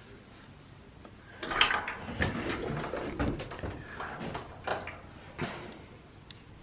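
Irregular knocks, scrapes and rustles in a small pigeon loft, starting about a second and a half in and dying away near the end.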